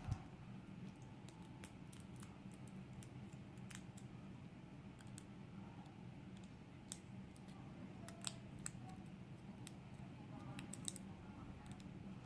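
Light, irregular metal clicks and taps from a Euro lock cylinder being handled and shimmed for disassembly, with a few sharper clicks in the second half, over a low steady hum.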